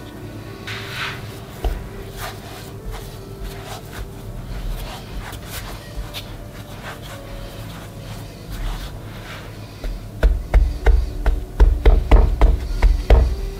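A hand pressing and working soft potato dough on a floured wooden board, with rubbing and small clicks. Near the end comes a quick run of low thumps, about three a second, as the dough is pressed down against the board.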